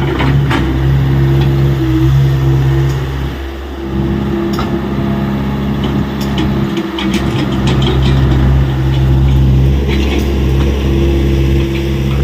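Diesel engine of a Tata Hitachi EX70 hydraulic excavator running steadily, its pitch and strength shifting as the load changes, with scattered knocks and clatter over it.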